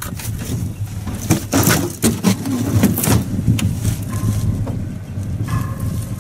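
Irregular knocks, clunks and scraping, as of gear being handled in an aluminium boat, over a steady low hum.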